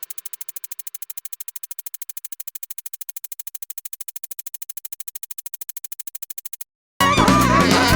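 Background music: a fast, even synthesizer pulse that stops suddenly near the end, and after a short gap a fuller band section comes in.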